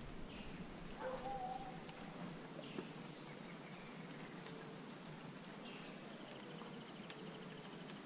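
Faint wild birds and insects calling. A short high note repeats about once a second, two falling whistles come about a second in, and a brief rapid trill sounds near the end.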